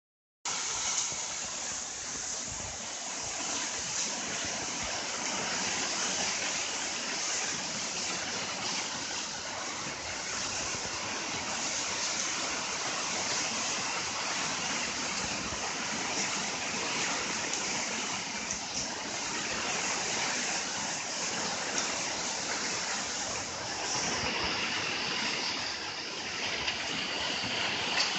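Strong typhoon winds blowing hard, a steady rushing hiss with small surges.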